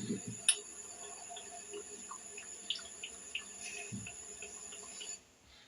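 Water running with soft splashing and scattered drips. There is a sharp click about half a second in and a low thud near four seconds, and the water sound cuts off about five seconds in.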